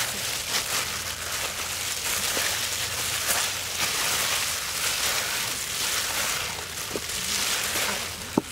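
Hands in thin plastic gloves mixing a sticky shredded-banana and flour batter in a metal bowl, with steady crinkling and rustling of the plastic and soft squishing of the batter.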